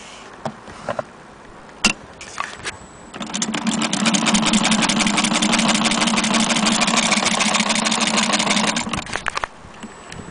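Antique Jones hand-crank sewing machine, approx. 1890s, being cranked and stitching through a paper towel: a rapid, even mechanical clatter that starts about three seconds in and stops about six seconds later. A few separate clicks come before it.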